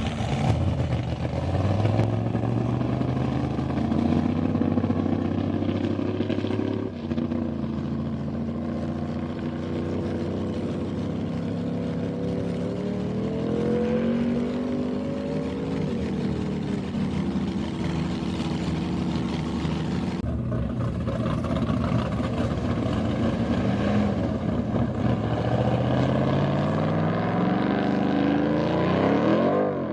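Land-speed racing engines running, their notes shifting in pitch with abrupt changes about a quarter and two-thirds of the way through, and a sharp rising rev just before the end.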